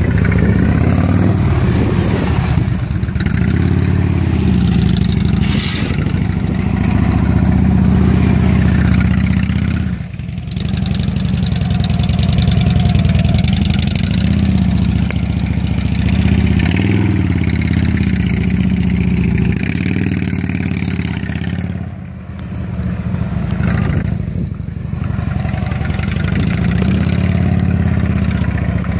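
Police touring motorcycle's engine running at low speed through tight slow turns, the throttle rising and easing off, with brief drops in the engine sound about ten seconds in and again about twenty-two seconds in.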